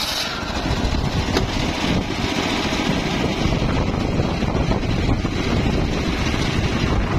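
Engine of a homemade circular sawmill running steadily with a fast, pulsing rumble. A high hiss cuts off sharply just after the start, leaving the engine and spinning blade running on their own.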